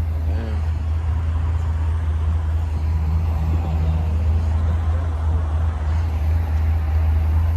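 A vehicle engine idling close by: a steady low hum that does not change.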